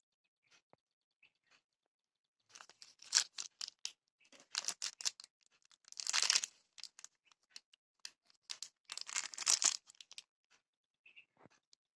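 Crinkling, rustling noise with small clicks, in four bursts with quiet between them, like something being handled or unwrapped.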